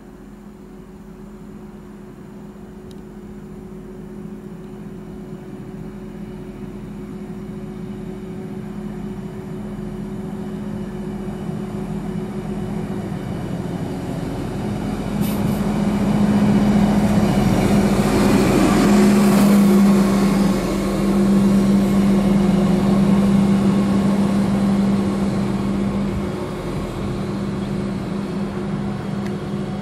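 Diesel multiple unit's engine drone growing steadily louder as the railcar approaches and pulls in alongside the platform. It is loudest in the second half, with rolling noise mixed in, then settles to a lower steady drone near the end.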